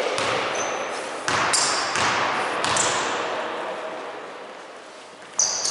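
A basketball bouncing on a gym floor a few times, with short high sneaker squeaks, in a large echoing hall. The hall noise fades away, then comes back suddenly near the end.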